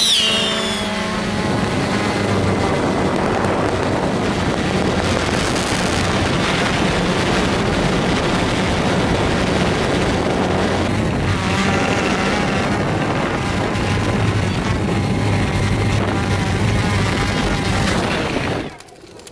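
Camera drone's propellers and motors running, a steady buzzing hum heard from the drone's own onboard microphone; it falls away sharply near the end.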